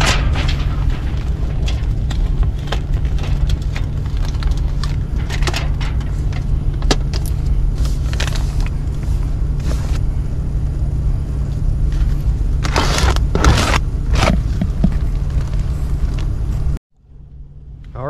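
Foil tape crinkling as it is pulled, torn and pressed onto a sheet-metal return plenum, with a few louder ripping strokes about thirteen seconds in, over a steady low hum from the running air handler. The sound cuts off abruptly near the end.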